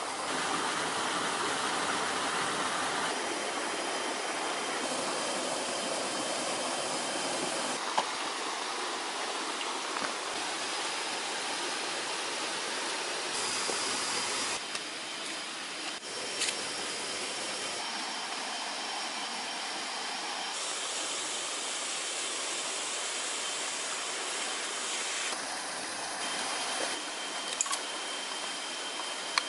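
Steady forest ambience: a continuous hiss with faint, thin, high insect tones running through it, its level shifting every few seconds. A few brief knocks and rustles come in the middle and near the end as a backpack is set down and opened.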